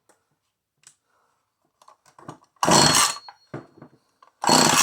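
Recoil starter rope of a vintage McCulloch Mac 110 chainsaw pulled twice, a rasping whirr each time, after a few small handling clicks; the engine does not fire because its ignition switch is off.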